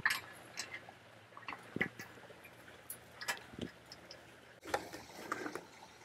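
Scattered light metallic clicks and taps as a bolt and nut are worked into the channel at the header-to-post joint of a metal greenhouse frame, with a brief rustle near the end.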